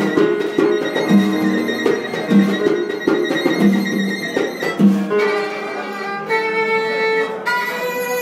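Violin played live over a drum kit and a low, repeating accompaniment with a steady beat. About five seconds in the beat drops out and the violin holds long notes.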